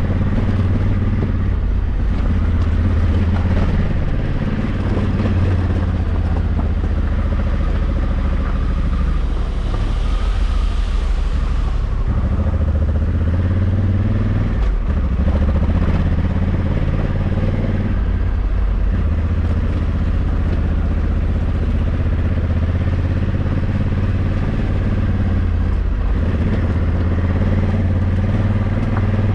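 Honda Africa Twin 1100's parallel-twin engine running under load as the motorcycle is ridden, its note shifting up and down with the throttle, with a few brief dips in the engine sound.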